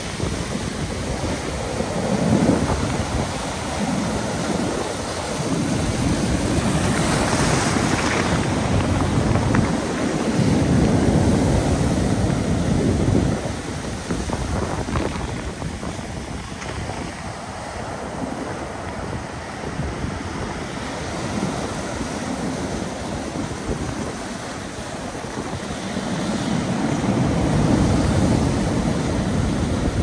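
Heavy surf breaking on a pebble beach: waves crashing and foam washing up over the stones in long surges, loudest about a third of the way in and again near the end.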